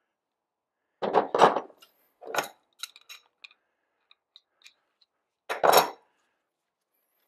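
Metal bike parts and hand tools being handled and set down on a workbench: two clanks about a second in, another a second later, and a loud clank near the end, with light clicks and taps in between.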